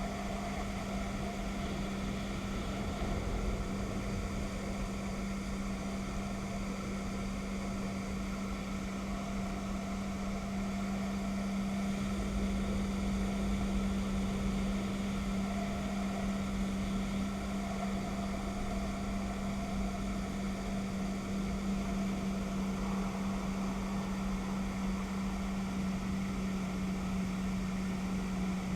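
Jet ski engine running at a steady speed, with a constant hum over the rush of noise from the ride.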